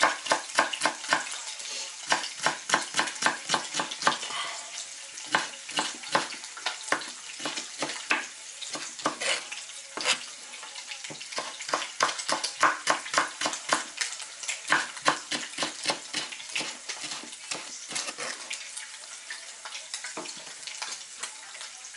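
Knife chopping grated beetroot on a wooden cutting board in runs of quick strokes with short pauses, over pork fat sizzling and spitting in a frying pan.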